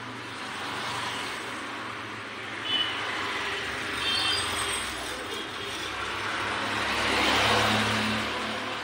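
A road vehicle passing by: a steady rushing noise that swells to its loudest about seven seconds in and then fades, with a couple of brief high chirps about three and four seconds in.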